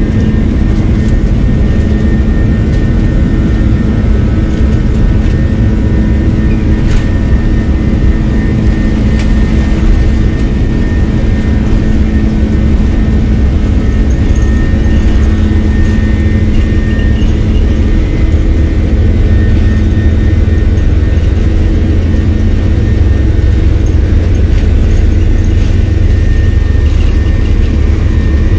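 Airliner cabin noise heard from inside the cabin: a steady jet-engine drone with a few constant hum tones over a deep rumble, the rumble growing stronger about two-thirds of the way through.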